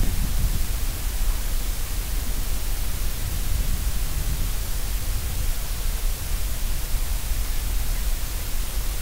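Steady noise: an even hiss over a low, fluctuating rumble, with no distinct events.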